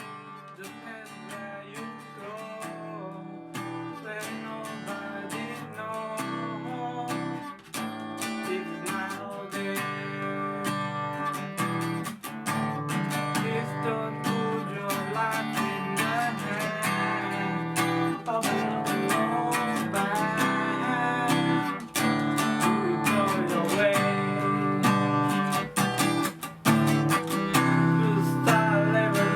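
Background music led by strummed acoustic guitar, growing steadily louder.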